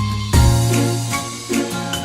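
Background music: an upbeat instrumental track with a steady beat and bright, chiming notes.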